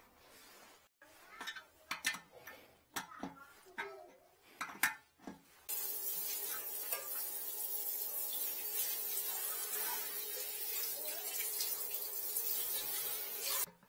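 A handheld shower sprayer running, water hissing steadily onto the bathroom floor tiles; it comes on about six seconds in and cuts off just before the end. Before it come a few light knocks and taps of handling.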